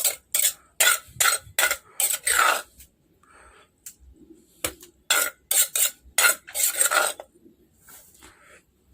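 Metal spoon scraping and clattering against a dish while papaya salad is scooped and mixed, in short strokes about two a second, with a pause a few seconds in.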